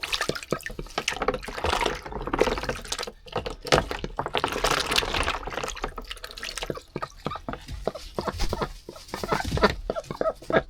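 Ducks splashing and dabbling in their water, with irregular splashes and drips; a hen in heat is churning about in it.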